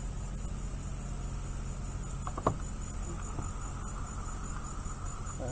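Insects chirping in a steady, rapid high trill over a low steady hum, with one brief sharp sound about two and a half seconds in.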